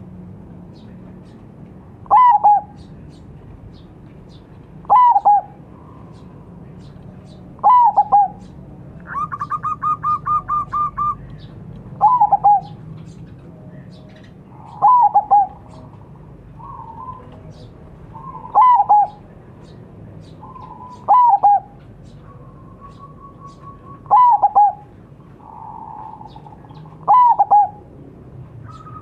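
Zebra dove (perkutut) calling: nine loud calls about three seconds apart, each a sharp falling note followed by a couple of short notes. A quick run of softer repeated notes comes in about nine seconds in.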